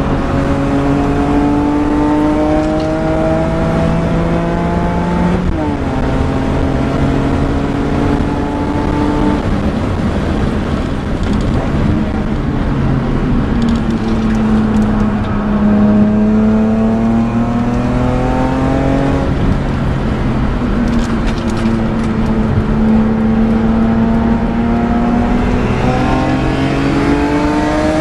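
BMW M3 E46's 3.2-litre straight-six with a Supersprint exhaust, heard from inside the cabin while it is driven hard on track. The engine note climbs under acceleration and drops sharply with an SMG upshift about five seconds in. It falls away on a lift around ten seconds, then climbs again, rising quickly near the end.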